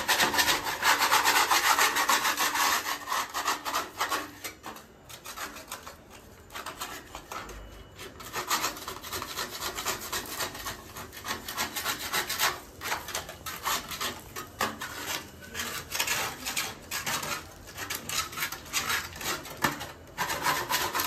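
Putty blade scraping flaking, damp-loosened paint and putty off a plaster wall in rapid repeated strokes, loudest during the first few seconds.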